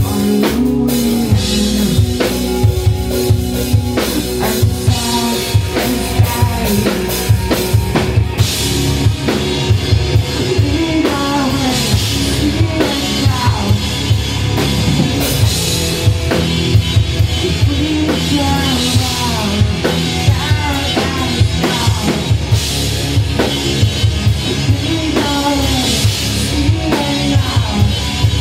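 Live rock band playing loud: a drum kit keeping a steady beat of kick and snare, under bass and electric guitars.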